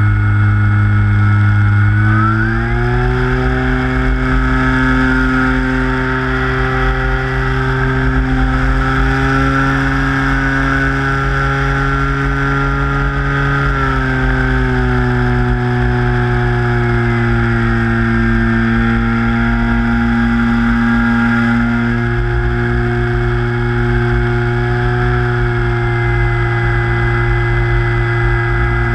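Electric motor and propeller of an E-flite Carbon-Z Cub RC plane in flight, a steady droning whine that steps up in pitch a couple of seconds in and drops back about halfway through as the throttle changes. A low rumble of wind on the fuselage-mounted camera's microphone lies under it.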